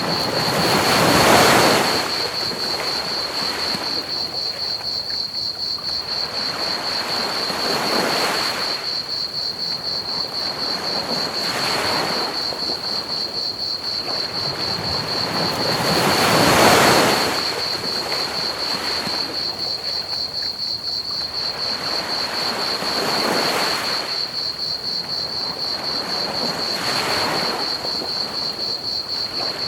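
Ocean waves washing onto a beach in slow surges every few seconds, the two largest about a second and a half in and about halfway through. Under them, crickets chirp in a steady high trill over an even bed of pink noise.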